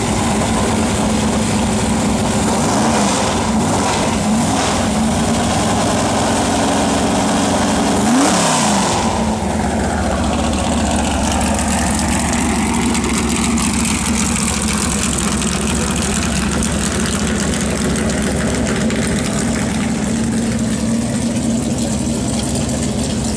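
Built big-block Chevrolet V8 with a wild cam idling through open side-pipe exhaust in a 1973 Corvette. It is blipped briefly a few times in the first five seconds and revved once more, higher, about eight seconds in, then settles back to a steady idle.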